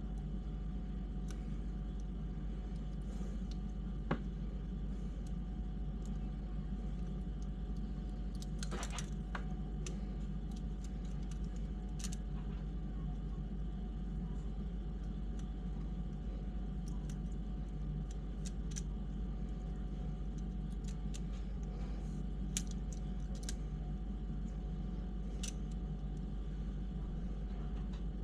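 Light clicks and clinks of small screws and parts being handled while an RC crawler's skid plate is bolted into its chassis, scattered and faint, over a steady background hum.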